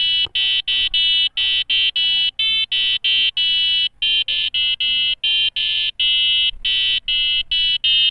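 Piezo buzzer driven by an Arduino playing a melody as a string of short, shrill beeping notes, about two to three a second, each at a different pitch.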